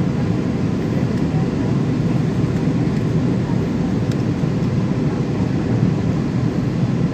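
Steady low rumble of an airliner in flight, heard from inside the passenger cabin: engine and airflow noise at an even level.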